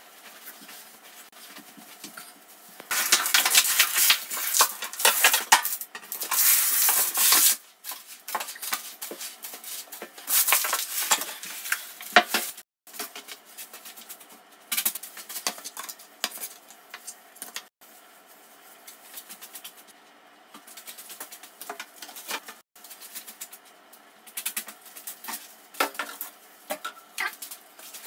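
Sand being poured out onto a sheet on a tiled floor in a few long pours, followed by scattered knocks and scrapes of handling.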